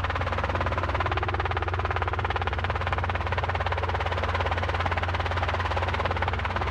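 Robinson R22 helicopter's engine and two-blade main rotor running steadily, a constant drone with a fast, even blade beat, heard from inside the cabin during low flight along the runway.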